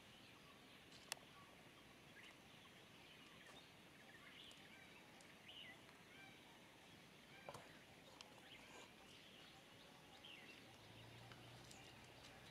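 Near silence: faint outdoor ambience with scattered faint bird chirps, broken by one sharp click about a second in.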